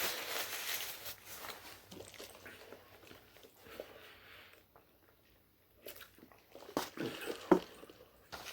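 Close-miked chewing and biting of food, with soft crackles and small mouth clicks. There is a short quiet pause around the middle, then sharper clicks.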